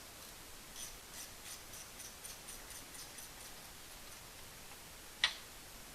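Hand ratchet clicking in a quick even run, about four clicks a second, as it is swung back on a 14 mm brake caliper bolt of an ATV's rear hub. One louder sharp metal click near the end.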